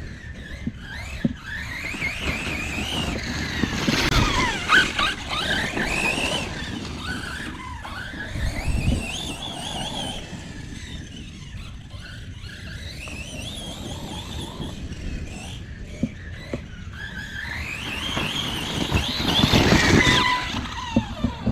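Redcat Kaiju EXT RC truck's brushless motor and drivetrain whining, the pitch rising and falling again and again as it speeds up and slows down. The surges are loudest about four seconds in and again near the end.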